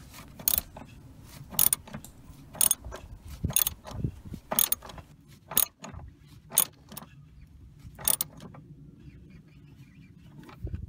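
Ratchet wrench with a socket clicking in short bursts, about one stroke a second, as the battery hold-down bracket bolt is tightened clockwise; the clicking stops a little past eight seconds in.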